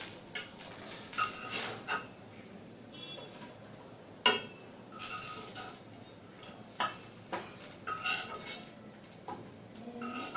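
Metal utensil scraping and clinking against a kadai as pieces of fried fish are lifted out. It comes as a series of short scrapes and clanks, some with a brief metallic ring, with one sharp knock about four seconds in.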